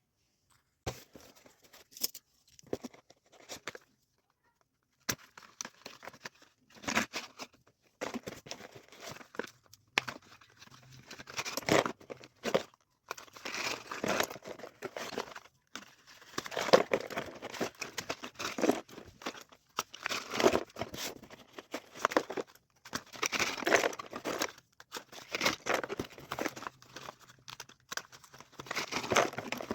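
Packaging being crinkled and torn open by hand during an unboxing, in irregular rustling bursts with short pauses.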